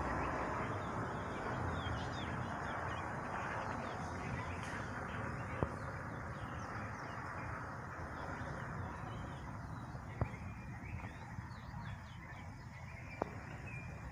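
Many small birds chirping over a low, steady noise that slowly fades, with three sharp clicks at intervals.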